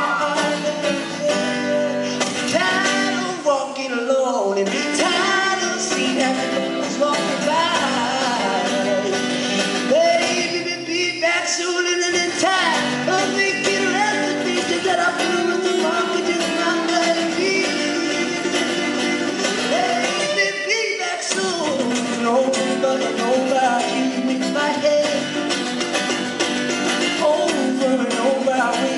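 A live song with a man singing over acoustic guitars, played and sung without pause.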